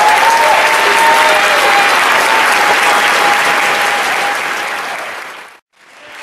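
Audience applauding after a eulogy. The clapping fades over the last second or so and cuts off abruptly near the end.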